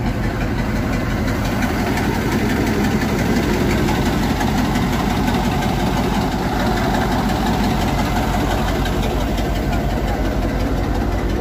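UD Nissan V8 diesel truck engine idling steadily, with an even, regular beat.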